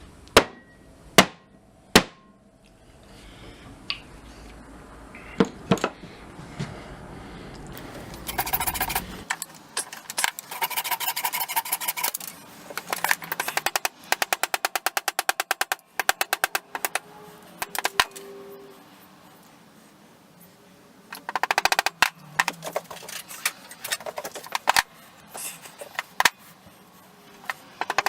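Hammer blows seating a sledgehammer head on a new hickory handle and driving the wooden and metal wedges into its top. First come a few single sharp knocks, then from about nine seconds in long runs of rapid, evenly spaced strikes.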